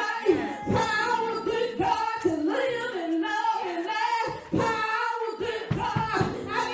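A woman singing a slow melody into a microphone, with long held notes and sliding pitch.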